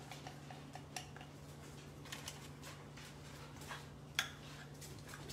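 Spoon scraping and tapping against a glass container as melted chocolate is scooped out, in faint scattered clicks and scrapes with one sharper tap about four seconds in.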